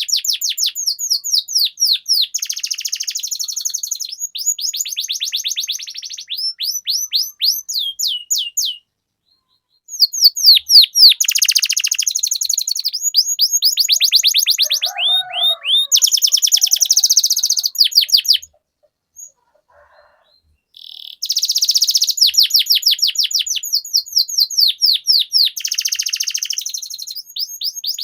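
Domestic canary singing long rolling trills: fast runs of repeated, falling whistled notes strung into phrases several seconds long. The song breaks off twice for a second or two.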